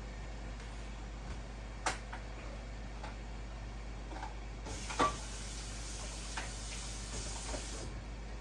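Light clicks and knocks of kitchen items being handled over a steady low hum: a sharp knock about two seconds in, a louder one about five seconds in, and a few seconds of hiss in the middle.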